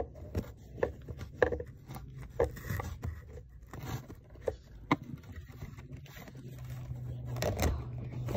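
Fingers handling a stack of Pokémon trading cards in a cardboard box: scattered small clicks and scrapes of card edges sliding against each other and the box as one card is worked out of the stack.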